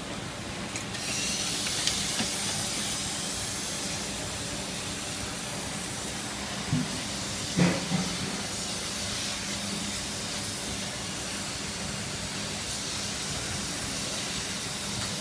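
Espresso machine steam wand hissing steadily into an empty plastic water bottle held over its nozzle, starting about a second in. Two short knocks come about halfway through.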